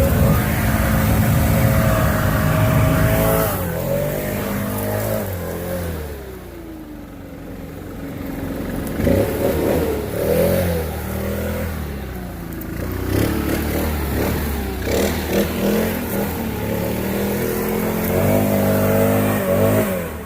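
Leaf blower running and blowing out a pile of leaves. The engine is throttled down about four seconds in, rises again a couple of seconds later and is revved up and down after that.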